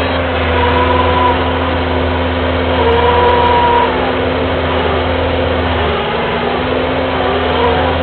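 Kubota skid steer's diesel engine running under load, heard from the operator's seat, with a whine that rises and falls as the machine drives and turns. The low engine note shifts about six seconds in.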